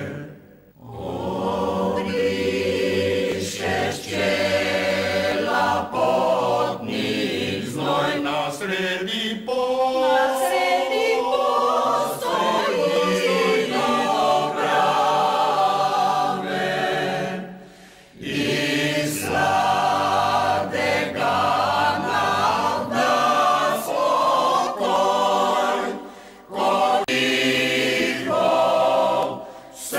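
Mixed choir of women's and men's voices singing a slow song in several parts, with brief pauses between phrases, the longest a little past halfway.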